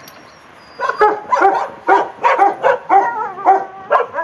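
A dog barking in a rapid run of short barks, about three a second, starting just under a second in; around three seconds in a few barks stretch into a wavering, whining yelp.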